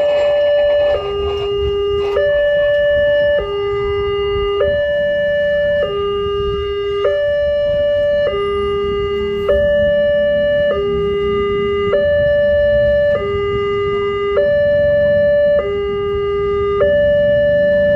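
Electronic level-crossing warning alarm from the loudspeaker on the crossing signal post, alternating a higher and a lower tone, each held a little over a second, repeating steadily. It sounds while the red lights flash and the barrier gates are down: the warning that a train is approaching.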